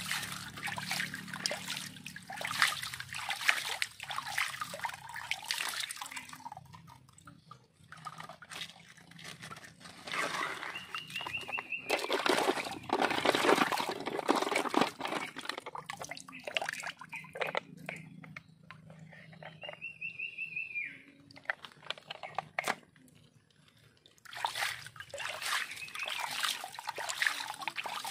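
Water pouring and splashing over plastic toy dump trucks loaded with sand and gravel, filling a truck bed, in bursts with short lulls. Two brief high chirps come about a third and two-thirds of the way through.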